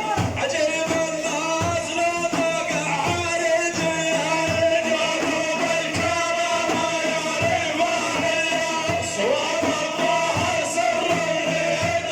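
Arabic madih song: music with a sung vocal line, a held melody and a regular low drum beat.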